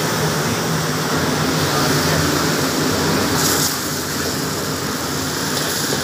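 Steady roar of commercial gas wok burners and kitchen extraction, with a short burst of hissing noise about three and a half seconds in.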